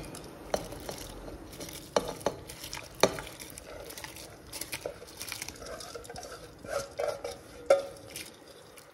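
Washed rice being stirred with a spoon in a pot of boiling salted water, the spoon knocking against the pot at irregular moments.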